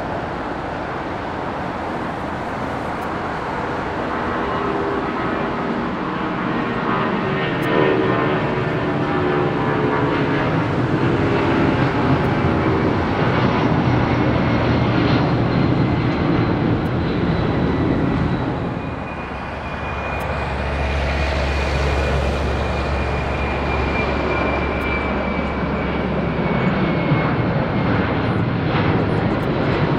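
Twin-engine jet airliners climbing out at takeoff thrust: first a Boeing 757's engines, a dense steady jet noise with a high whine that slowly falls in pitch. After a brief dip about two-thirds of the way through, a Boeing 767 freighter's engines take over with a strong low drone and another high whine slowly falling.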